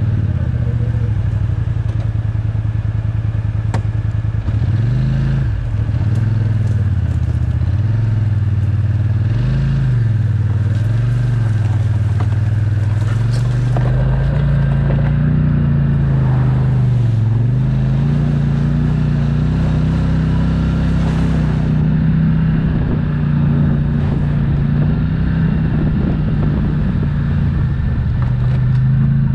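ATV engine running while riding, its pitch dipping and rising with the throttle several times in the first half, then holding steadier and a little higher.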